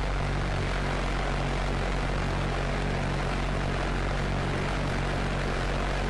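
Argus pulse-jet engine of a V-1 flying bomb in flight, giving its steady, low buzzing drone.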